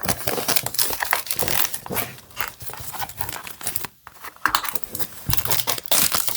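Plastic shrink-wrap being torn and crumpled off a product box: dense crinkling and crackling, with a short pause about four seconds in.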